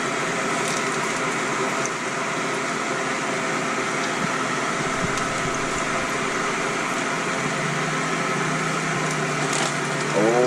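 Hot oil in an electric deep fryer sizzling and crackling steadily as battered perch and bluegill fillets fry.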